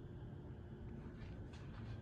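A 2001 Hunter Coastal Breeze Plus ceiling fan running steadily: a low whir from the motor and blades with a faint steady hum, and a few faint clicks in the second half.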